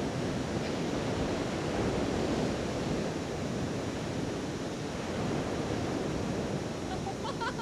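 Sea surf breaking on a sandy beach, a steady rushing wash, with wind buffeting the microphone. A few brief higher pitched sounds come near the end.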